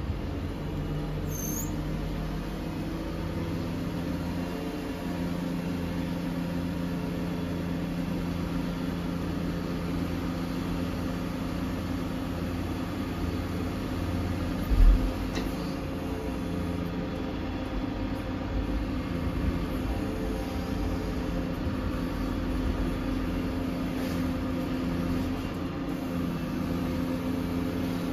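Volvo FE 320 lorry's diesel engine running steadily, powering the hydraulics of its HIAB XDuo 128 loader crane as it lowers a bulk bag. A single low thump about halfway through.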